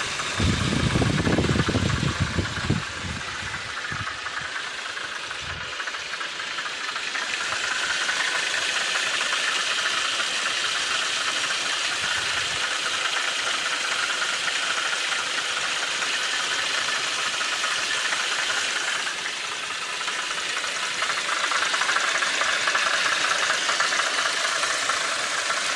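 VW Passat B5.5 1.8T turbocharged four-cylinder idling with a steady knocking/tapping noise that the owner cannot diagnose. A burst of low rumble in the first few seconds is the loudest part.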